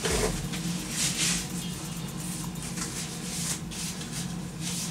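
Kitchen handling noises: a knock right at the start, then several brief rustles, over a low steady hum.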